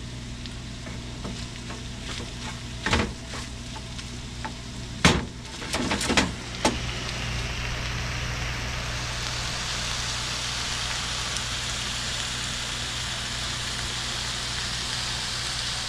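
Ground beef, porcini mushrooms, onion and corn sizzling in a frying pan, with a few knocks of a wooden spatula against the pan about three seconds in and again around five to six seconds in. From about eight seconds in the sizzle grows louder and brighter as the pan heats up, the burner having just been turned up to medium.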